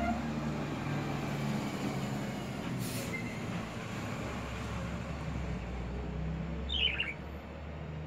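Budgerigar giving one short chirp, a quick run of notes falling in pitch near the end, over a steady low rumble of street traffic. A single sharp click about three seconds in.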